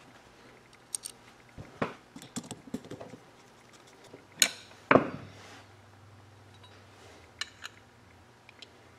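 Small screws and a screwdriver clicking and clinking against a metal gearbox housing as the motor attachment screws are set in and driven. Scattered light clicks, with the two loudest knocks about four and a half and five seconds in.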